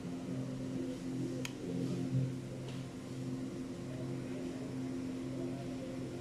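Steady mechanical hum of a small motor or appliance running, with one sharp click about one and a half seconds in.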